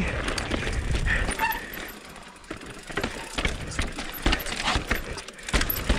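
Full-suspension e-mountain bike rattling down rocky singletrack: tyres knocking over rocks and the bike clattering in irregular sharp knocks, with a hard knock near the end that the rider thinks might have been a rim ding.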